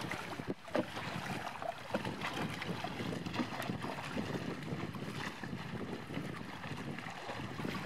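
Water splashing and lapping, with wind noise on the microphone: a steady wash broken by many small irregular splashes.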